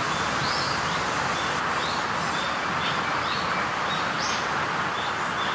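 Small birds chirping, short high calls repeating every half second or so, over a steady rushing hiss.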